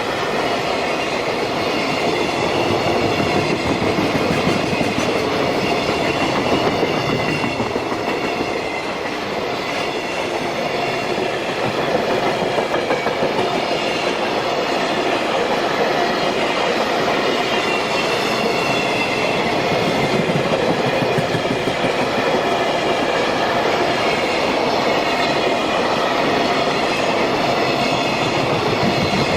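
Freight wagons of a long container train rolling past at speed: a steady rumble with a rhythmic clatter of wheels over rail joints and high wavering tones from the wheels and rails above it.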